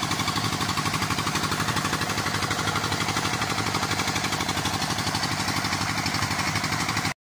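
25 HP diesel engine running steadily with an even, rapid pulsing beat as it drives a tubewell pump, with water gushing from the outlet pipe into a concrete tank. The sound cuts off abruptly near the end.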